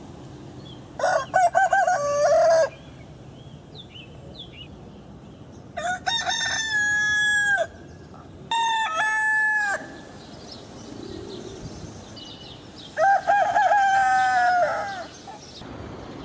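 Roosters crowing: four cock-a-doodle-doos a few seconds apart, each call stepping in pitch and lasting about one and a half to two and a half seconds.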